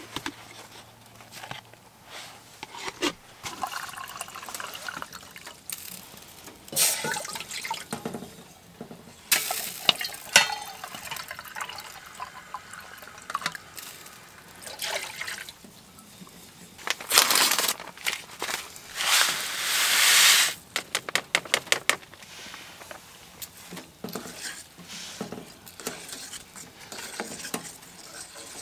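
Camp dinner preparation: liquid poured into cookware and the clinks and knocks of metal pots and utensils, a string of separate knocks with a few longer rushing pours and a quick run of clicks about three quarters of the way through.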